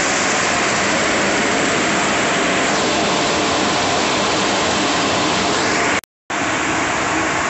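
Concrete mixer truck running with its drum turning while discharging concrete down the chute into a crane bucket: a steady, loud noise that drops out completely for a moment about six seconds in.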